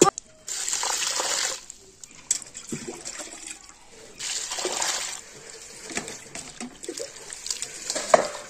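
Water poured from a steel jug into a steel bucket of mustard and bathua greens being washed, in two pours, about half a second in and again about four seconds in, with splashing and swishing between them as a hand works the wet leaves. A sharp knock right at the start.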